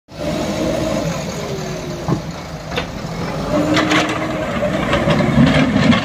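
Diesel engines of JCB backhoe loaders and an excavator running under load while they dig a rocky hillside, the engine pitch shifting as they work. Several sharp knocks and clanks of bucket on rock and stones come through.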